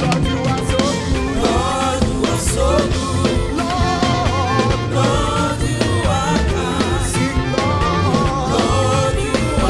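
Live gospel praise-and-worship music: voices singing over a band with a drum kit and strong bass, at a steady upbeat groove.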